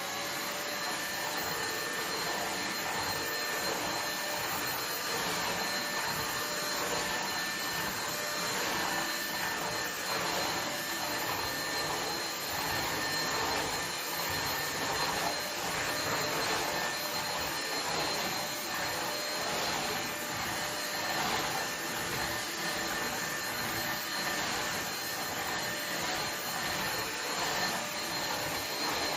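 Vacuum cleaner running steadily as it is pushed over a carpet, its rush of air carrying a thin high whine.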